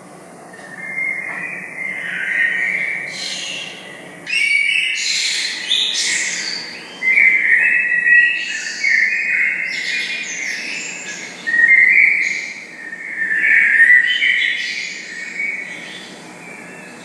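Pet lovebird chirping in a long run of repeated calls, growing louder about four seconds in.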